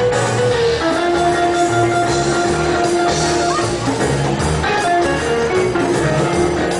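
Music with guitar: long held notes over a repeating bass line.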